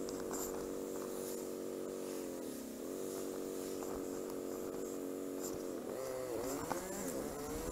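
Motorcycle engine running at a steady low speed, its note dipping briefly about a third of the way in, then rising and falling with throttle changes near the end.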